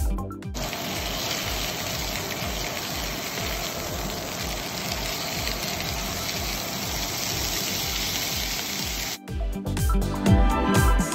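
Chicken skewers sizzling in hot oil in a frying pan, a steady even hiss that starts about half a second in and stops abruptly near the end. Background music with a steady beat plays throughout.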